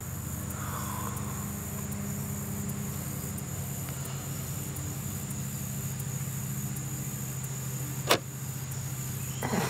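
Steady low hum of an idling engine, with a single sharp click about eight seconds in.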